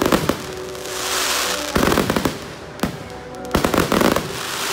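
Aerial fireworks bursting overhead: quick clusters of sharp bangs at the start, about two seconds in, and again near the end, with a high hissing crackle a second in.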